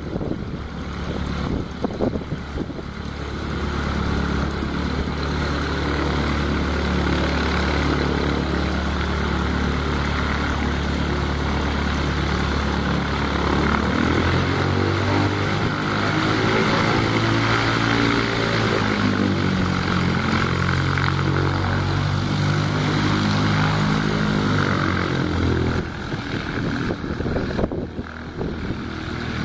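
Cessna 150's four-cylinder Continental O-200 engine and propeller running on the ground. It idles steadily, the engine speed rises about halfway through and holds, then drops back to idle near the end.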